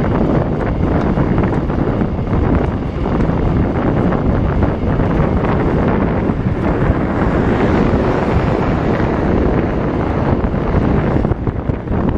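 Steady rush of wind buffeting a handlebar-mounted camera's microphone as a bicycle descends at around 50 km/h.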